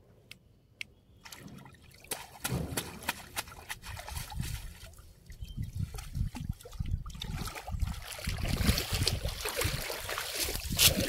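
Water sloshing and trickling with many small irregular splashes. It starts about a second in and grows louder toward the end.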